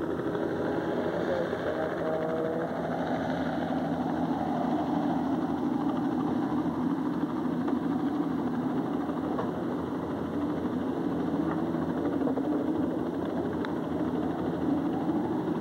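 Steady low engine drone under a rushing noise, unchanging throughout, with faint voices in the first few seconds.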